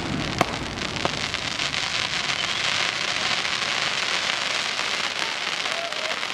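Fireworks crackling: a dense, continuous crackle of many tiny pops from a burst of glitter stars, with two sharper pops in the first second.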